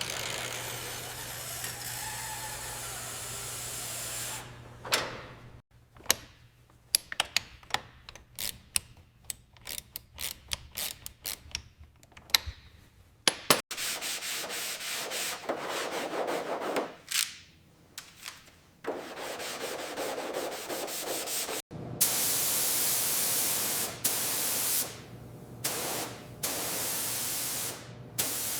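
Sanding to smooth bodywork: several separate passes of even, hissing abrasion, the loudest near the end, each stopping abruptly. In the middle is a run of quick clicks and taps.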